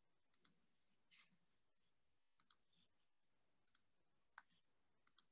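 Faint computer mouse clicks, mostly in quick pairs, about once a second.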